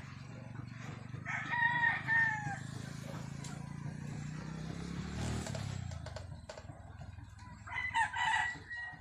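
A rooster crowing twice, the crows about six seconds apart, over a low steady hum that fades out about six seconds in.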